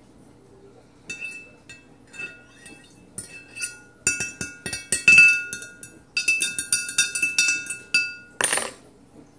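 Metal fork stirring inside a glass mason jar of oil and water, clinking rapidly against the glass, which rings after each strike. The clinking grows faster and louder about four seconds in, and there is a brief rushing noise near the end.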